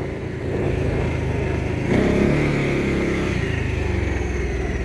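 Arctic Cat Alterra ATV engine running while being ridden. It picks up revs and gets louder about two seconds in, then holds and eases back slightly.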